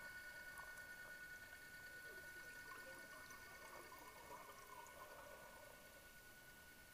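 Faint, steady high whine of a diver propulsion vehicle's electric motor heard underwater, with bubbles gurgling from about two to five seconds in.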